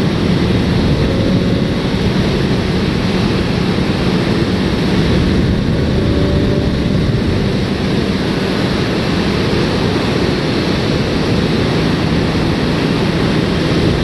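Steady rush of wind with the drone of a Suzuki GSX-S750's inline-four engine holding a constant speed, which the rider says is running great.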